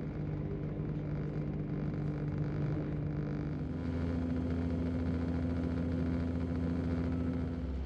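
Class 168 diesel multiple unit heard from inside the passenger saloon while moving: the steady hum of its underfloor diesel engine and running noise. About halfway through the engine note changes and a low drone grows stronger.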